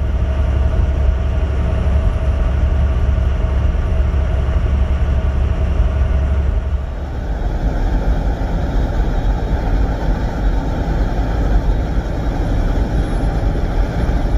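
Semi-truck under way at highway speed: a steady low rumble of engine and road noise. Its tone changes about seven seconds in.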